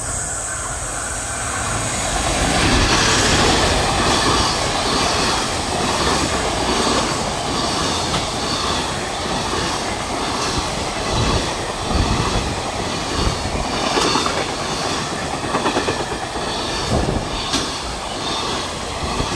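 Freight train of Koki container flatcars hauled by an ED76 electric locomotive passing through a station without stopping, the wagon wheels clattering over the rail joints in a steady, evenly repeating clickety-clack.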